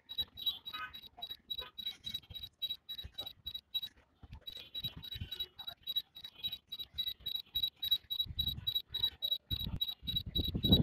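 Rapid, evenly spaced high-pitched beeping, about five beeps a second: the return-to-home alert of the DJI Mini SE's controls while the drone flies itself home. The beeping breaks off briefly about four seconds in, and a low rumbling noise comes in near the end.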